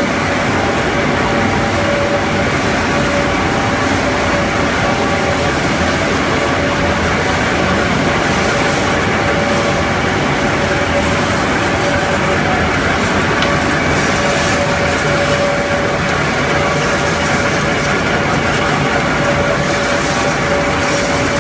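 Wood sawdust pellet production line running: pellet mills and conveyors give a loud, steady machine noise with a steady mid-pitched hum through it.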